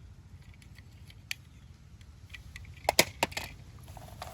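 Light clicks and knocks of plastic toy vehicles being handled, one about a second in and a quick cluster about three seconds in, over a faint low hum.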